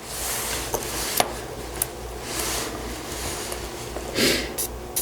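Faint clicks and taps of small tools being handled on a workbench, with a louder rustle near the end, over a low steady hum and soft swells of hiss.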